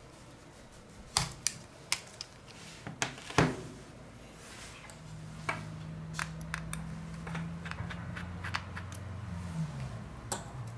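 Sharp clicks and taps of small tools against a smartphone's plastic parts as it is taken apart. From about halfway, a low steady hum runs for several seconds and drops in pitch as it stops, with light clicks over it.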